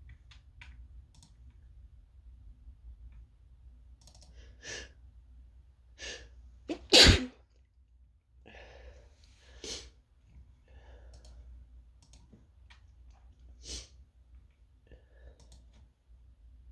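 A person sneezing once, loudly, about seven seconds in, with a few much quieter short breathy sounds before and after it.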